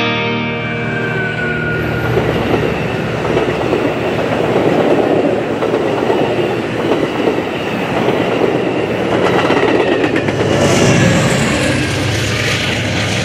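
Amtrak Pacific Surfliner passenger train passing close by behind an EMD F59PHI diesel locomotive, with the steady rumble and clatter of the coaches' wheels on the rails.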